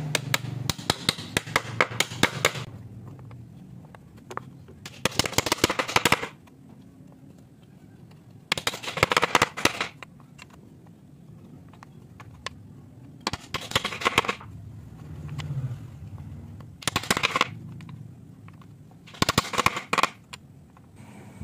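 Six short bursts of rapid clicking and clacking as small wooden strips are handled and tapped into the slots of a board, each burst lasting a second or two with pauses between.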